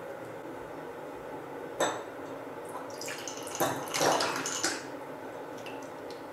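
A sharp glass clink about two seconds in. Then ice water is poured from a glass measuring jug through a small wire strainer of ice cubes into a glass, splashing, with ice and glass clinking, for about two seconds.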